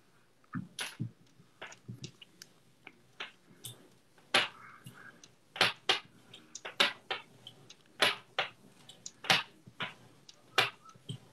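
Irregular short clicks and ticks, one or two a second, with a brief breathy rustle about four seconds in.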